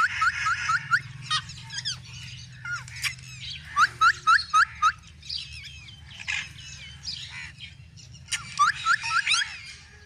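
Rose-ringed parakeets chirping: quick runs of short rising chirps, about five a second, in three bouts (at the start, about four seconds in, and near the end), with scattered squawks and chatter between.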